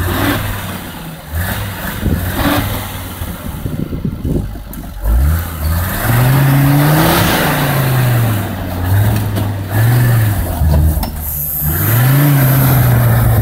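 Mercedes-Benz G-Class off-roader's engine revving under load as it climbs a steep snowy slope. The revs are uneven at first, then rise and fall in several surges, and hold high near the end.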